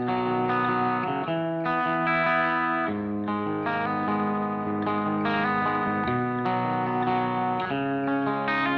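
Outro music: a guitar playing sustained chords that change about every second, with an effects-processed tone.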